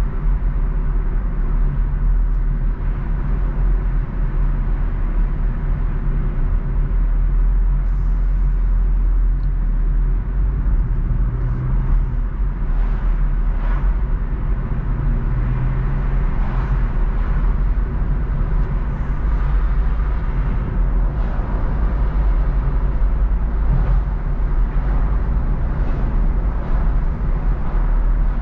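A car driving along at steady speed: a constant low rumble of engine and road noise.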